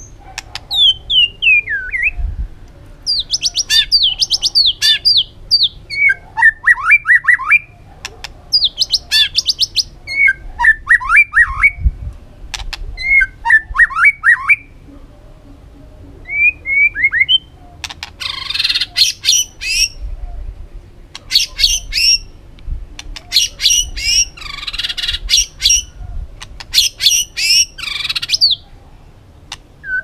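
White-rumped shama singing a varied song. It runs through short phrases of quick whistled glides and fluttering trills with brief pauses between them. In the second half come harsher, raspy notes.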